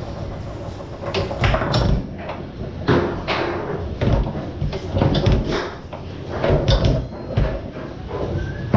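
Foosball being played on a Tornado table: irregular sharp clacks and knocks as the ball is struck by the rod men and bangs off the table walls, with rods rattling and thudding against their bumpers.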